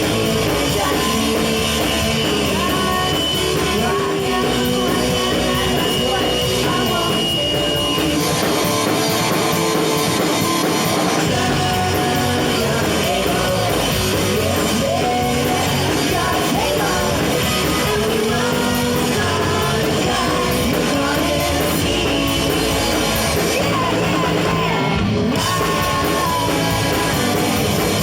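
Punk rock band playing live at full volume, with singing over electric guitars, bass and drums.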